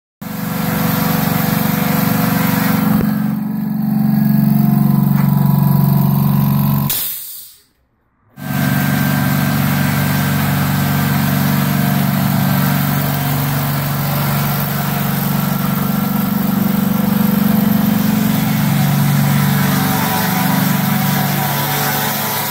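BAPRO ONE 230V plastering machine running steadily, its inverter-driven gearmotor and mixing pump making a low mechanical hum. The sound drops out for about a second partway through, then carries on as before.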